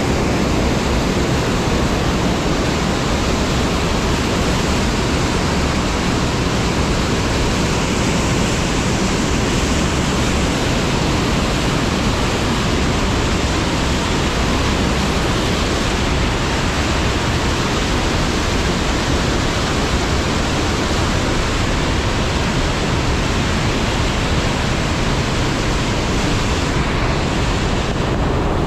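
Rushing water of a gorge stream and waterfall, a steady, loud, unbroken noise.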